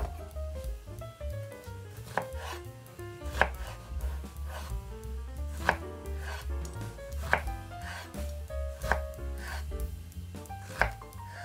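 Chef's knife cutting through fresh zucchini slices on a wooden cutting board. A sharp knock of the blade on the board comes about once a second, around eight cuts.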